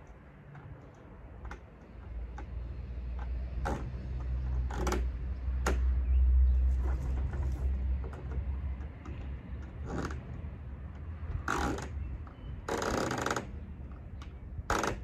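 Plastic playhouse parts being handled and fastened: scattered clicks, knocks and short scrapes, a few longer scrapes near the end. A low rumble swells and fades in the first half.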